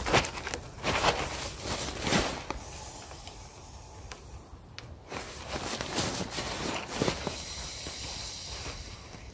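Dry fallen leaves rustling and crunching underfoot, in irregular short bursts that are loudest near the start and again about two and six seconds in.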